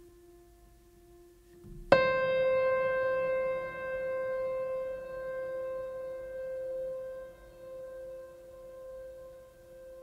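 Ambient music: over a faint held lower tone, a single note is struck about two seconds in and rings on, slowly fading.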